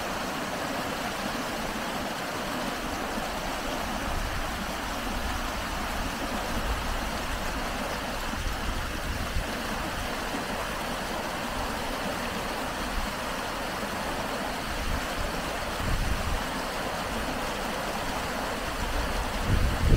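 Steady rushing of flowing water, with low gusts of wind on the microphone toward the end.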